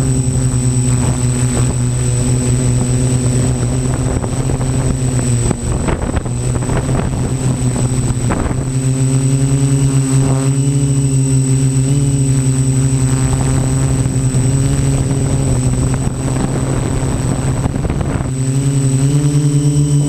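Quadcopter's electric motors and propellers buzzing steadily, heard from the camera riding on the craft, with a thin high whine above. The pitch sags for a few seconds about a quarter of the way in and rises again near the end as the throttle changes.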